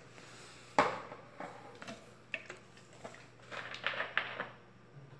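Knocks and clatter of containers being handled while alcohol is fetched and measured for the soap batch: one sharp knock about a second in, a few light clicks, then a run of rattling near the end.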